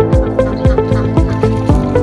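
Background music with a steady beat of about two and a half thumps a second under a melody.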